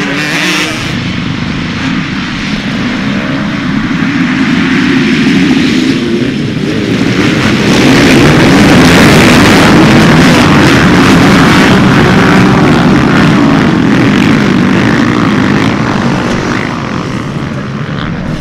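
Many motocross dirt bike engines revving together as a pack races past. The sound grows louder about eight seconds in, holds for several seconds, then eases off toward the end.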